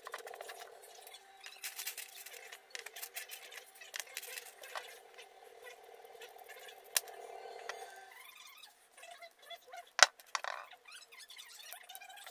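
Small metal screws and washers clicking and scraping as they are picked up and fitted by hand with a small screwdriver, with a sharp click about ten seconds in.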